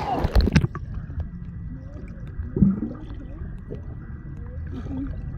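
Water splashing close by. Under a second in, the sound suddenly turns muffled and low as it is heard from under the water: a rumbling wash of water with bubbling, gurgling and faint clicks.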